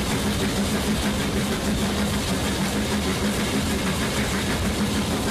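Steam locomotive and its train running, heard from a carriage window just behind the engine: a steady rush of noise with a constant low hum and no distinct beat.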